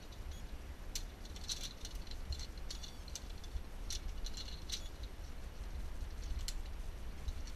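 Irregular metallic clicks and clinks of zip-line carabiners and harness hardware being handled and clipped on, over a steady low rumble.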